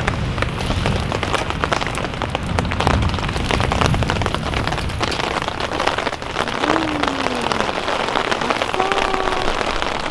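Rain falling steadily, many separate drops striking a surface close by, with a low rumble during the first few seconds that fades out.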